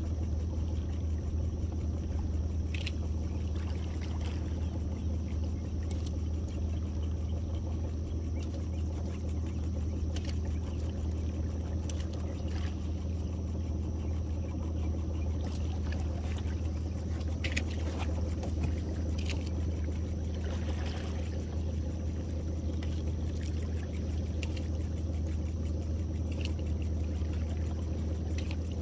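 Boat's outboard motor running slowly, a steady low drone, with occasional light clicks.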